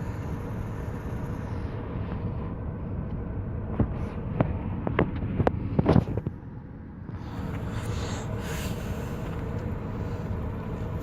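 Road noise inside a moving car, a steady low rumble, with about five sharp clicks roughly half a second apart around the middle.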